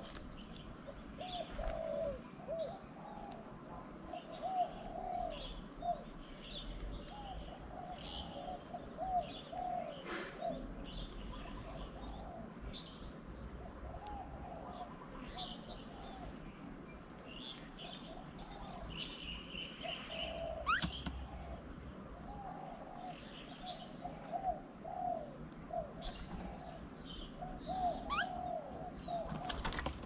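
Doves cooing in repeated short phrases, with scattered higher chirps from other birds.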